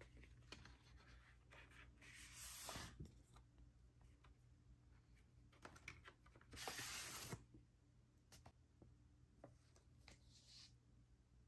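Faint handling of an LP's cardboard jacket and paper inner sleeve: two short sliding rasps of paper on card as the sleeve is drawn out, with small taps and rustles between.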